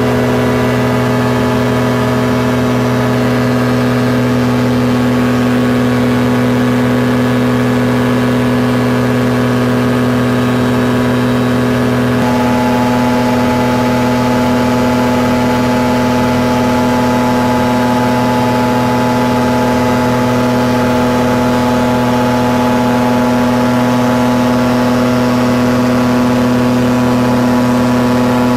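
Caprice 21 ultralight aircraft's engine and propeller droning steadily in cruise flight, heard from inside the cabin. The engine note shifts slightly about twelve seconds in.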